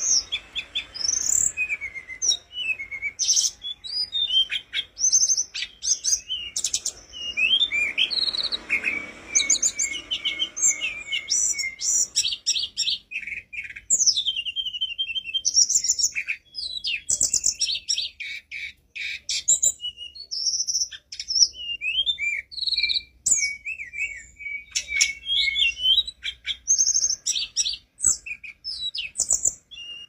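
Hill blue flycatcher (tledekan gunung) singing without pause: a fast, varied stream of clear whistled notes and quick rising and falling glides.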